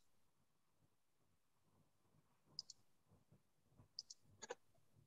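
Near silence with a few faint, sharp clicks, mostly in close pairs, about two and a half seconds in and again about four seconds in.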